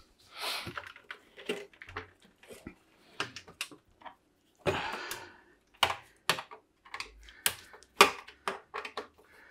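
Opened Sony TC-K590 cassette deck's metal chassis being handled and tipped up onto its back: irregular clicks, knocks and light rattles, with a brief scuff about half a second in and another about five seconds in.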